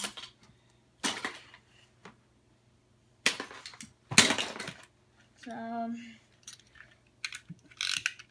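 Handling noises from plastic Beyblade spinning tops and parts being picked up and fitted together: several short rustling bursts and a few light plastic clicks, the loudest a rustling thump about four seconds in. A child gives a short hum about halfway through.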